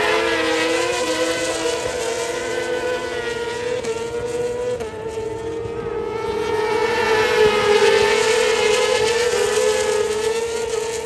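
World Superbike racing motorcycles passing at high revs, several engines screaming together. Loud as the first bikes go by, easing a little through the middle, then louder again about seven seconds in as the next group of bikes passes.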